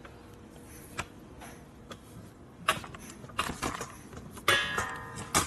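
Metallic clinks and rattles from hand tools and metal parts being handled. A few single clicks come first, then it gets busier about halfway in, with a loud ringing clank near the end.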